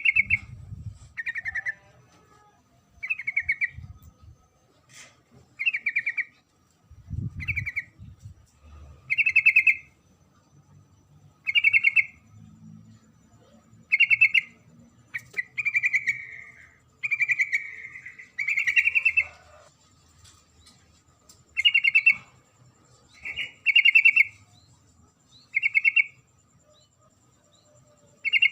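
Female yellow-vented bulbul calling: short, rapid chattering calls repeated about every two seconds, with a few longer runs in the middle. A low thump near the start and another about seven seconds in.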